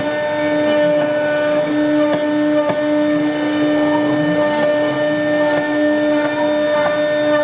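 CNC router spindle running with a steady, unchanging whine while the router cuts polypropylene corrugated sheet, with scattered light ticks from the cutting.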